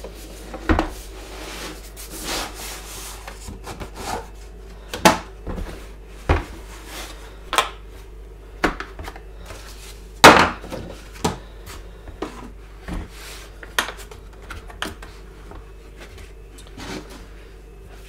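A hard plastic tool case being taken out of its cardboard box, set down on a hard stone worktop and opened: scattered sharp clicks and knocks with some rubbing between them, the loudest knock about ten seconds in.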